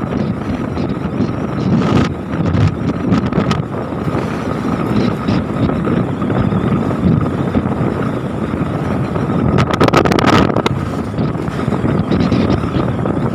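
Wind rushing over the microphone of a moving motorcycle, with the engine running underneath at cruising speed and a few short crackles about ten seconds in.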